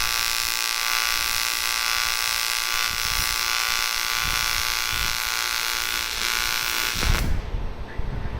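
AC TIG welding arc on aluminium: a steady buzz with a hiss over it, which cuts off suddenly about seven seconds in as the arc is stopped. A low, uneven rumble follows.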